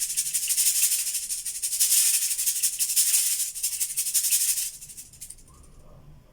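Cabasa shaken in a fast rhythmic rasp, its steel bead chains scraping over the ridged cylinder; it stops about four and a half seconds in.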